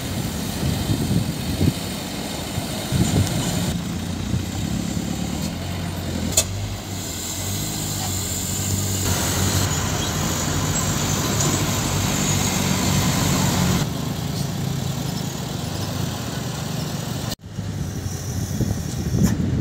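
Diesel engines of loaded sand dump trucks running on a dirt road, in short joined clips whose sound changes abruptly several times.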